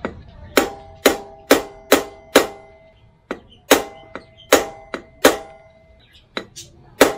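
A hammer striking the end of an e-bike's rear axle, metal on metal with a short ringing tone after each blow, to knock a tight brake drum loose. About a dozen strikes come in quick runs of roughly two a second, with short pauses between them.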